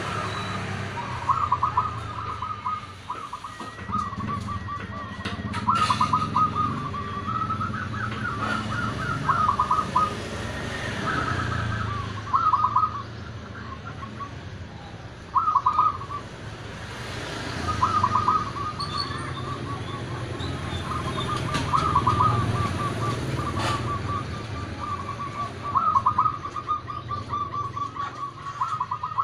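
Zebra doves (perkutut) cooing: short phrases of rapid, stuttering high coos repeated every few seconds, over a steady low background rumble.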